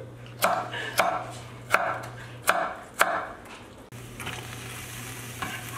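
Five crisp crunches of raw vegetable in about two and a half seconds. Then a soft, steady sizzle of chopped onion and celery sweating in a stainless stock pot.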